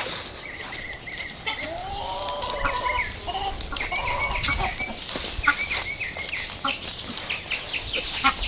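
A flock of chickens clucking and calling, with many short overlapping calls and one longer drawn-out call about two seconds in.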